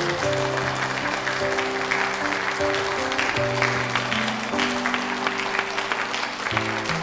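Audience applauding over background music of slow, held notes.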